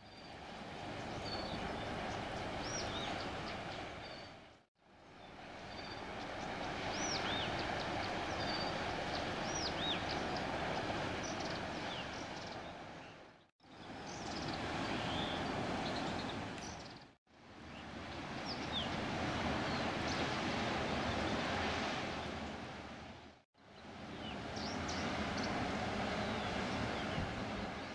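Steady low rumble of a passing river passenger motor ship, with songbirds chirping over it. The sound comes in several short stretches, each fading in and out to silence.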